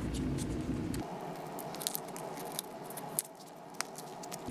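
Foil lid being peeled back from a small plastic tub of Brussels pâté: a scatter of small sharp crackles and crinkles.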